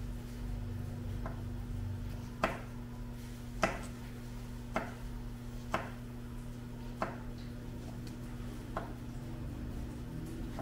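Kitchen knife chopping a red bell pepper on a cutting board: sharp knocks of the blade on the board, roughly one a second, over a steady low hum.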